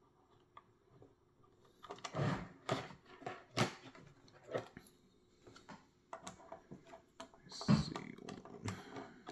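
Scattered knocks, clicks and rustling from a puzzle box and its pieces being handled as they are tried in its slots.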